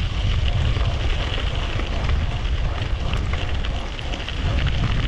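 Wind buffeting the microphone of a riding mountain bike, a steady low rumble with scattered small clicks and rattles over it.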